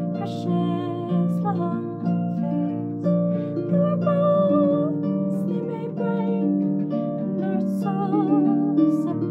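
Concert harp played with plucked chords over a repeating bass figure, with a woman singing along with vibrato on her held notes.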